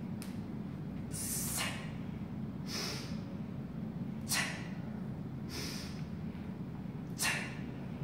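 A woman's sharp, hissing breaths, about one every second and a half, paced to her repeated one-arm kettlebell snatches. A steady low hum runs underneath.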